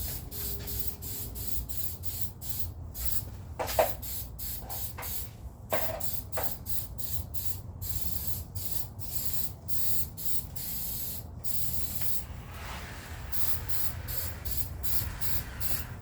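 Rust converter being sprayed onto a rusty rear axle in many short hissing bursts, a few held longer, with a couple of light clinks about four and six seconds in.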